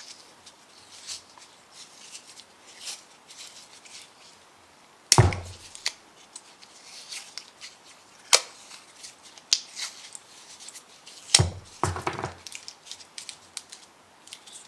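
Tape being pulled and wrapped around two wooden pen blanks to hold them tight, with rustling handling noise and several sharp knocks of the blocks and tape roll.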